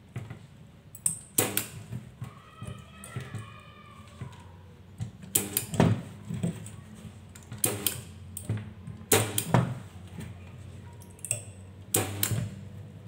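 Battery spot welder firing through its handheld pen, welding nickel strips onto lithium-ion cells: a series of sharp snaps, one every second or two, some in quick pairs, over a steady low hum.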